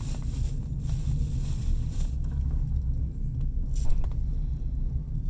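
Passenger train running, heard from inside the carriage: a steady low rumble, with stretches of hiss in the first two seconds and a brief sharp noise just before four seconds in.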